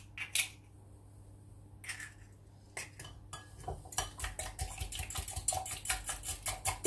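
An egg being beaten in a glass measuring jug: a few separate taps, then from about four seconds in a quick, even clinking of the utensil against the glass, about five strokes a second.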